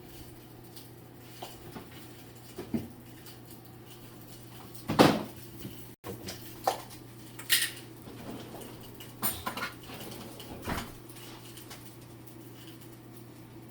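Kitchen cutlery and cookware clattering: scattered knocks and scrapes of metal utensils against a pan and dishes, the loudest about five seconds in, over a steady low hum.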